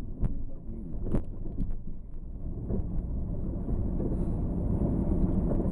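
Car driving downhill heard from inside the cabin: a steady low rumble of tyres and engine, with a couple of sharp knocks in the first second or so.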